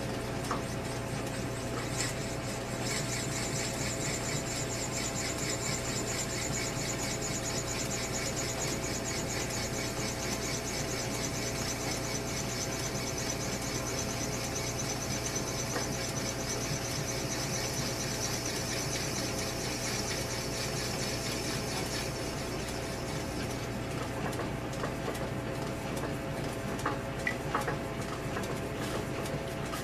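South Bend lathe running while a drill cuts into the bore of a motorcycle handlebar, with a steady motor hum. A high squeal from the cut starts about three seconds in, slowly drops in pitch and dies away about two thirds of the way through, followed by a few light clicks near the end.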